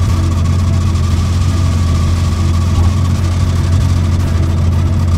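Vehicle engine idling steadily, heard from inside the cabin: an even low hum.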